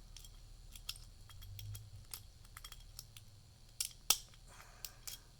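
Lock pick raking the back pins of a Defiant residential deadbolt held under a tension wrench: light metallic clicks and scrapes at irregular intervals, the sharpest two just under four seconds in.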